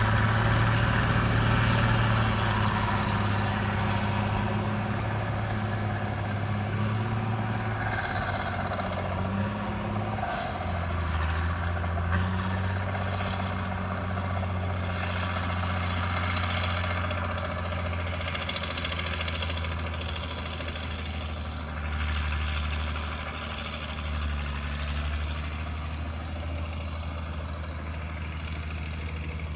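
Heavy road-construction machinery engine running steadily under a low, even drone. Its pitch drops about ten seconds in and then holds.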